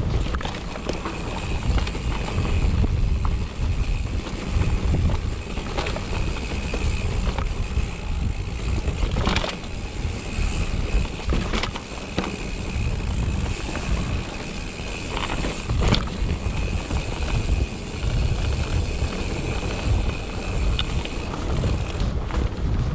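Mountain bike riding down a rocky trail: a steady rumble of wind on the microphone and tyres over rock, broken by sharp knocks and rattles as the bike hits rocks, the loudest a few times in the middle.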